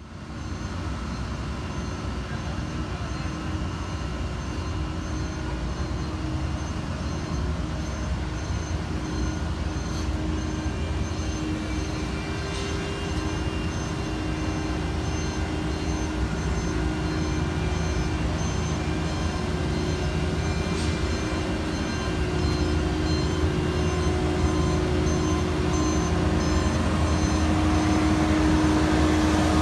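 Diesel engines of heavy paving equipment running steadily, growing louder during the last third, with a backup alarm beeping faintly and evenly in the background.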